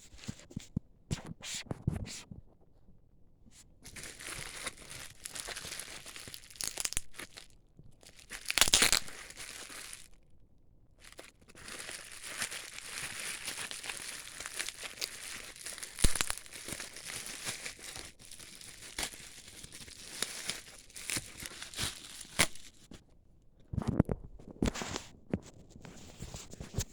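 Packaging being torn open and crinkled by hand, in irregular rustling stretches with small clicks and a louder tearing burst about nine seconds in.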